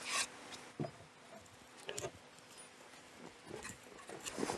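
Faint, scattered clicks and knocks from handling a chiselled wooden post, then a run of footsteps on dirt and gravel near the end.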